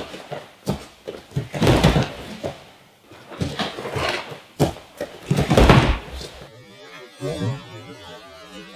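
Bare feet stepping and scuffing on gym mats and bodies colliding as two men drill a double-leg takedown: several loud, short thuds and scuffs, quieter after about six and a half seconds.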